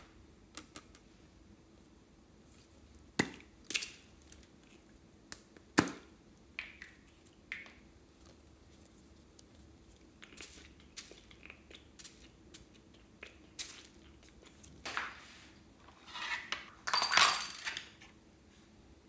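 Scattered clicks and knocks of small plastic bottles being handled and tapped against a glass baking dish, with two longer rustling bursts near the end.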